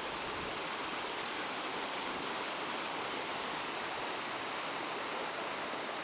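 A waterfall's falling water, a steady rushing noise.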